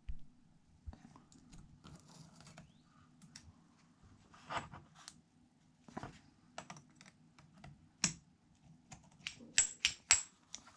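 Light metallic clicks and clinks of steel pit bike gearbox gears and shaft being handled and fitted together, with a quick run of sharper clinks near the end.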